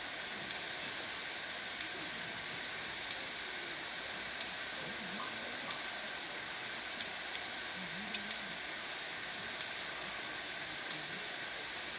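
Steady hiss of background noise, with a faint sharp click about every 1.3 seconds. Faint low voices murmur now and then.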